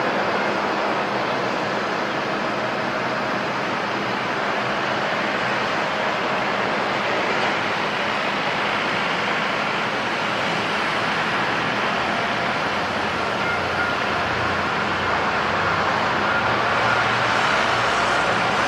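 Airliner engines running at a distance: a steady rushing noise with a faint high whine, growing a little louder near the end.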